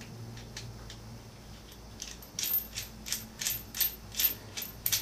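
Small metal parts of a motorcycle frame slider clicking in the hands as a nut is turned on its bolt to check the threads: a few scattered clicks, then a run of about three clicks a second in the second half.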